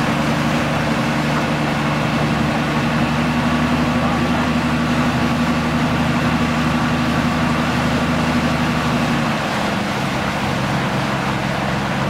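Outboard motor pushing a small aluminium fishing boat along at cruising speed, a steady engine drone over the rush of water and wind. About nine seconds in the engine note drops a little lower and slightly quieter.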